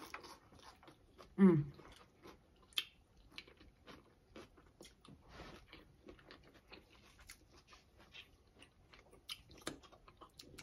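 Close-up biting and chewing of a crisp shrimp tostada, with many quick crunches throughout. About a second and a half in there is one loud, short hum of the voice that falls in pitch.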